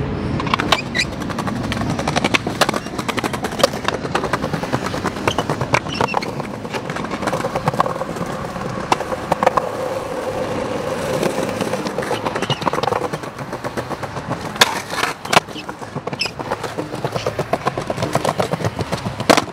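Skateboard wheels rolling over rough pavement, a continuous rattle, with several sharp clacks of a board striking the ground.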